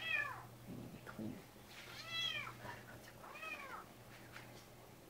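A cat meowing three times, each meow rising and then falling in pitch: one right at the start, one about two seconds in and a shorter one about three and a half seconds in.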